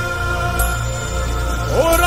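Hindi patriotic song with held instrumental chords over a steady bass, between sung lines; near the end a voice slides upward into the next line.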